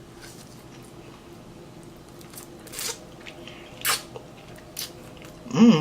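Close-miked eating of a seasoned chicken wing: a few short, wet mouth clicks and smacks of chewing, spaced about a second apart, over quiet room tone.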